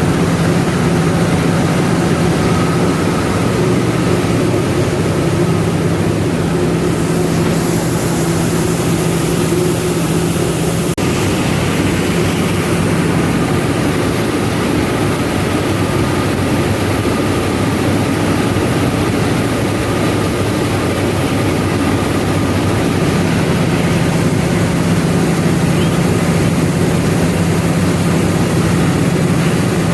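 Rice milling machinery running steadily: a loud, even mechanical hum with a constant rushing noise.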